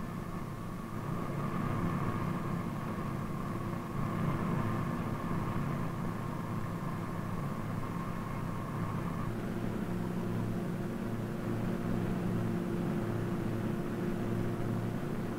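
Flying boat's engines running steadily in flight, a continuous hum heard inside the fuselage; the mix of tones shifts about nine seconds in.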